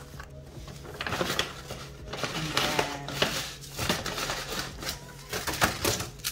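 Crinkling plastic packaging and light taps and clicks as card-backed rhinestone packs and a boxed gem set are handled and set down on a table, in irregular bursts.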